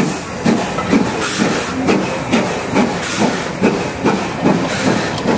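Steam-hauled passenger coaches rolling slowly past, their wheels clicking over the rail joints in a regular clickety-clack of about two to three beats a second, over a steady hiss of running noise.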